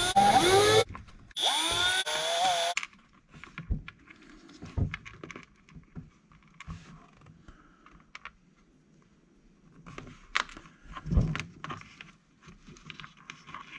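Cordless electric screwdriver whirring twice, its pitch rising as the motor spins up, as it backs screws out of a plastic RC truck chassis. After that come quiet clicks and knocks of small plastic parts being handled.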